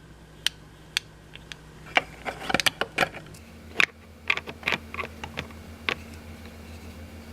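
Small hard plastic toy pieces clicking and clattering as they are handled. A few separate clicks come first, then two busier runs of rapid clicks in the middle.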